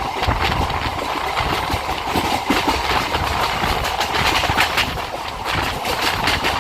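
Electric suburban local train running between stations, its wheels clattering over the rail joints with many repeated clacks over a steady rumble and rattle of the coach, heard from inside the carriage.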